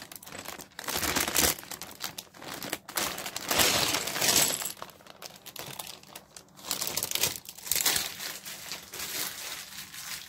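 Plastic Lego parts bag crinkling in several bursts as it is handled and opened, with loose plastic bricks clattering out onto the tabletop.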